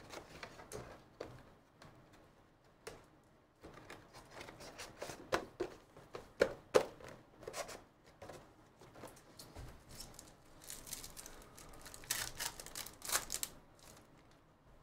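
Panini football trading cards and their foil pack wrappers being handled: quiet scattered clicks and rustles as cards are slid and flipped, with a denser stretch of crinkling about three-quarters of the way through.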